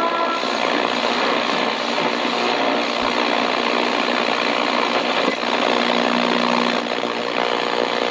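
Steady hiss and static from a vintage GE clock radio's speaker while it is tuned across the AM band, with weak station sound faint under the noise.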